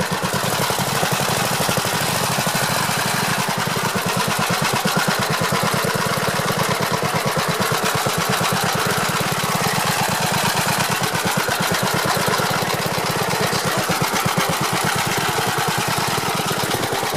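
Gravely walk-behind tractor engine running steadily at an even pulse as the tractor drives across the grass.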